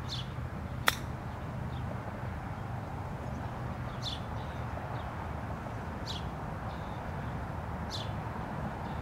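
Golf chip shot: a single sharp click of the wedge striking the ball about a second in. A bird gives four short, high, falling chirps spread about two seconds apart, over steady low outdoor noise.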